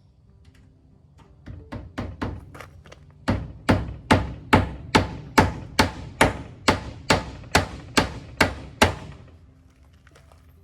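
Hammer driving a nail into wood: a few lighter taps to start it, then about fourteen hard, evenly spaced blows, a little over two a second, stopping shortly before the end.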